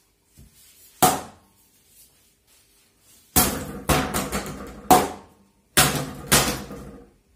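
Hard strikes of a home-made softcombat falcata, made of heat-hardened foam rubber with a bamboo rod core, hitting a plastic water bottle on a wooden workbench. There is one hit about a second in, then a quick run of about five more from halfway on, each knock ringing briefly.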